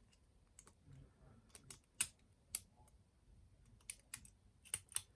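Lock pick and tension wrench working the pin stack of a Yale padlock: small, irregular metallic clicks, the sharpest about two seconds in and a few more close together near the end.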